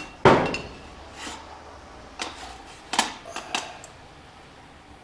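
Cast aluminium bars clanking as they are set down on top of a metal-casting furnace: about six sharp metallic knocks with a short ring, the loudest just after the start.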